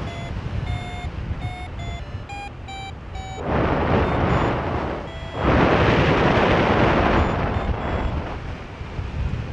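Paragliding variometer beeping: short tones, two to three a second, shifting slightly in pitch, the vario's signal that the glider is climbing. About three and a half seconds in, wind rushes over the microphone in two loud gusts that cover the beeps, over a low wind rumble throughout.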